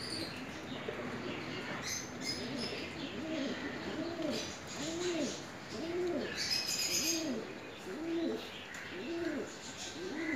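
A dove cooing in a steady run of low notes that rise and fall, each under a second apart, with small birds chirping higher up in a few short bursts.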